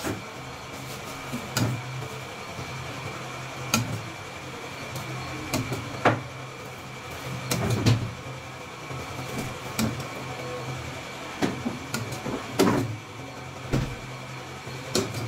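Scattered clicks, taps and light scrapes of a metal palette knife against a steel bowl and a cake turntable as whipped cream is spread, every second or two, over a steady low hum with a faint high whine.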